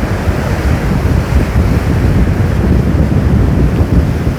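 Rough sea surf breaking and churning, driven by an approaching typhoon, with strong wind buffeting the microphone as a steady low rumble.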